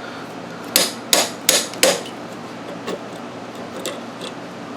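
Metal tool knocking on metal parts: four quick sharp strikes about three a second, then a few light clicks.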